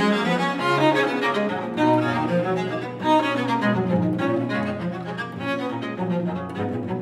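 Two cellos playing a duet with the bow, a quick allegro movement with the notes changing rapidly in both parts.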